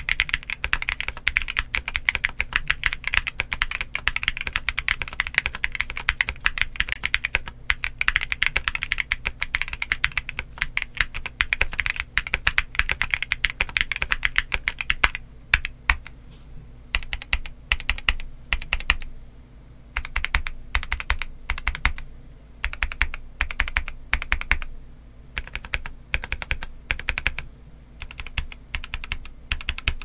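Mechanical keyboard with Gazzew LT 65 g switches in an aluminium plate, fully foamed, with PBT Cherry-profile keycaps, being typed on fast and continuously. About halfway through, the typing breaks into short runs of keystrokes separated by brief pauses.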